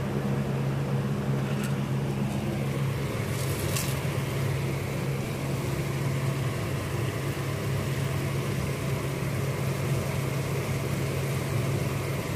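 Steady low mechanical hum from a running fan or motor, with a few faint brief clicks in the first few seconds.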